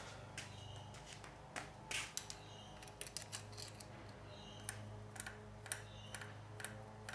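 Quiet, irregular small clicks and taps of metal hose clamps being handled and turned on the rubber carburettor intake boots, over a steady low hum.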